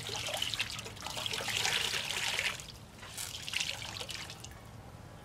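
Water running and trickling from a wet microfiber cloth being wrung out into a steel bowl. There is a longer, louder stream in the first half and a second, weaker one about three seconds in.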